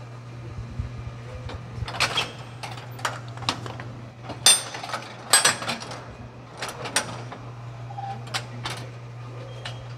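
Automatic walnut-cake (hodu manju) baking machine running: a steady low motor hum under irregular metallic clicks and clanks as its hinged metal molds open, close and move along the line. The sharpest clanks come a little past the middle.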